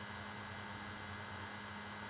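Room tone: a steady hiss with a low electrical hum and no other event.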